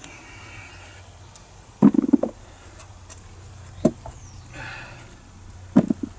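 Dull thuds and knocks of potatoes and compost being handled in a potato tub: a short cluster about two seconds in, then single knocks near four and six seconds, with a brief rustle between them.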